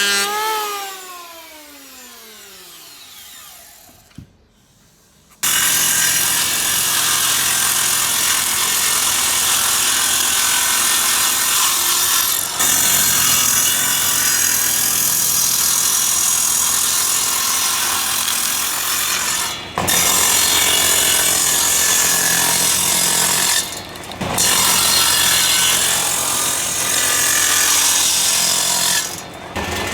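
An electric woodworking power tool's motor winds down to a stop, falling in pitch. After a moment of quiet the tool starts again and works wood with a loud, steady, rough whir, broken by a few brief pauses.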